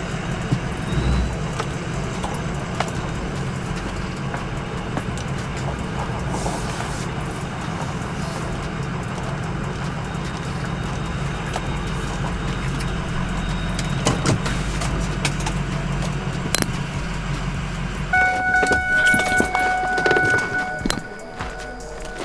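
Inside a moving truck's cabin: steady low engine and road rumble. About eighteen seconds in the rumble drops away and the truck's steady electronic warning chime sounds, with a few clicks and knocks.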